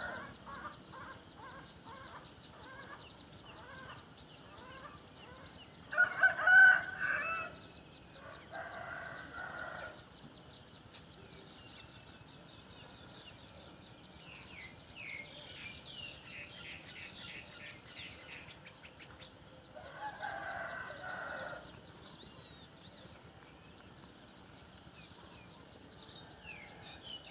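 Rooster crowing a few times, the loudest about six seconds in, with small birds chirping in a quick run in between.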